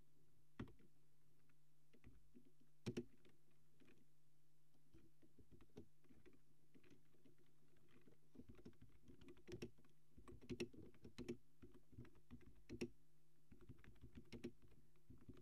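Faint typing on a computer keyboard: a few scattered key clicks, then a quick run of keystrokes from about eight seconds in, over a low steady hum.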